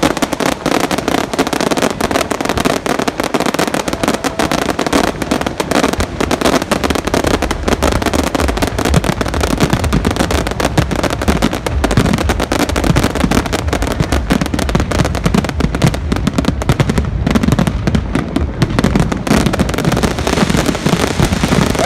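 Fireworks display: a dense, continuous barrage of bangs and crackles with no pause.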